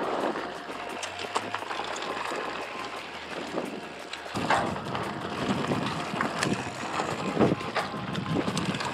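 Mountain bike riding down a dirt singletrack: knobby tyres rolling over earth, roots and dry leaves while the bike rattles over bumps, with wind buffeting the microphone. It gets louder and rougher about halfway through.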